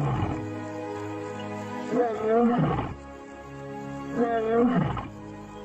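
A lion roaring three times, about two seconds apart, over background music with long held notes.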